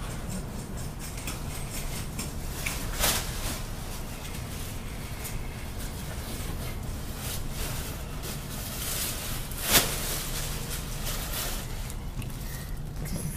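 Steady low hum of a laundromat's running machines, with a sharp knock about three seconds in and a louder one near ten seconds.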